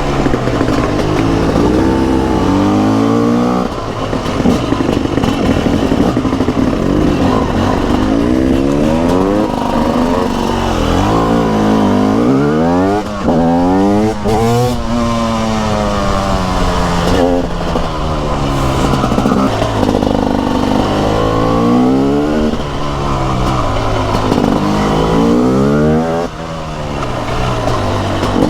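TM SMR 300 two-stroke supermoto engine ridden hard: the revs climb in repeated rising sweeps and fall back sharply again and again as it accelerates and shifts or backs off.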